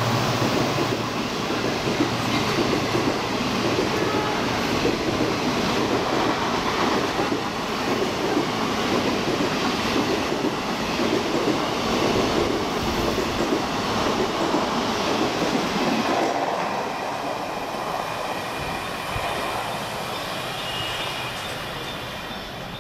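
Passenger coaches of an express train rushing past at speed, a dense steady rush of wheels on rails. The noise fades from about three-quarters of the way through as the last coach goes by and recedes.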